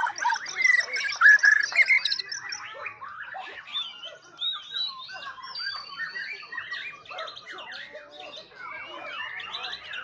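White-rumped shama (murai batu) singing a fast, varied song of whistles, chirps and rattling notes, loudest in the first two seconds, with other songbirds calling over it.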